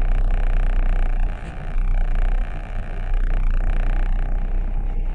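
Steady low engine rumble heard inside a vehicle's cab, with a constant noisy hum over it and two brief dips in loudness.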